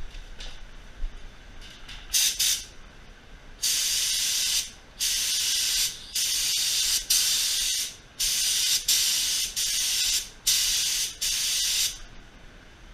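Compressed-air paint spray gun triggered in short passes while blending paint over a small spot repair: a brief hiss about two seconds in, then a run of about eight one-second bursts of hissing spray with short gaps between them.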